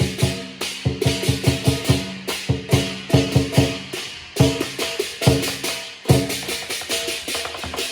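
Chinese lion dance percussion: a large drum beaten in a fast, driving rhythm together with clashing cymbals, with ringing metallic tones from the cymbals and gong hanging between the strokes.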